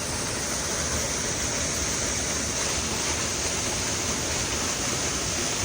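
Steady rush of water from a small waterfall cascading.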